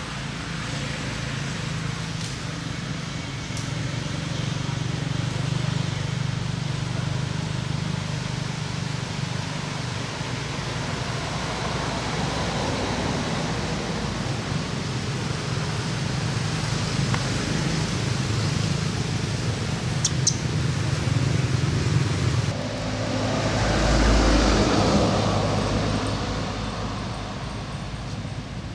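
Steady hum of motor traffic with engines running. About 23 seconds in, a louder vehicle swells up and fades away as it passes.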